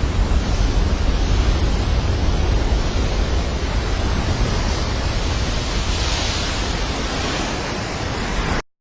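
Heavy ocean surf breaking in a continuous rush, with wind buffeting the microphone; it swells a little about six seconds in and cuts off suddenly near the end.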